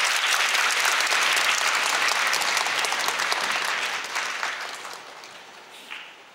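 Audience applauding, a dense crowd of claps that fades away over the last couple of seconds.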